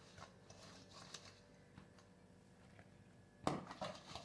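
Faint, quiet handling sounds as eggplant slices are rubbed in spice paste in a steel bowl, then a short knock of kitchenware against a dish about three and a half seconds in.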